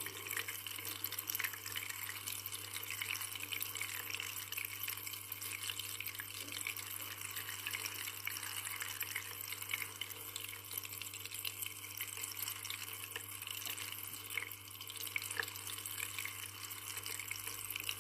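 Water falling and splashing in a steady, continuous stream, with a low steady hum beneath it.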